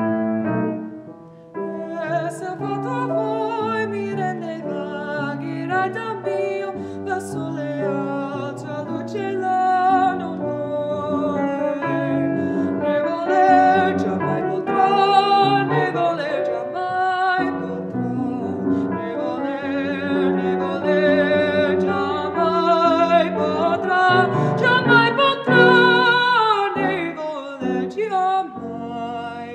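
Female classical singer performing an art song with vibrato, accompanied on a grand piano; after a short piano phrase and a brief dip, the voice comes in about two seconds in.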